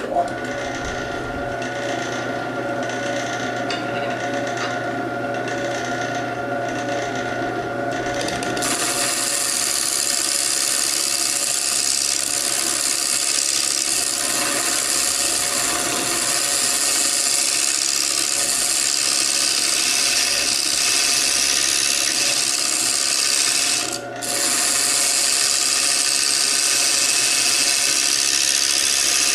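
Wood lathe running while a bowl gouge cuts the inside of a spinning segmented wooden bowl. The sound is steady. For the first nine seconds or so the motor's hum is the main sound under a light cut; after that a louder, hissing cut takes over. There is a brief break a few seconds before the end.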